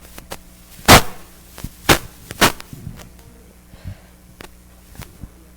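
A few sharp knocks and thumps: the loudest about a second in, two more about one and one and a half seconds after it, then a handful of fainter taps.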